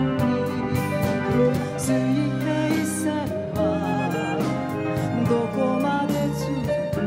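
A woman singing a song live with a backing band. Her voice carries a wavering vibrato on held notes over sustained bass notes and a regular drum beat.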